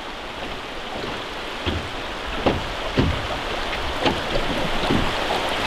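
River water rushing steadily around a drifting boat's hull, with a few short knocks scattered through the middle.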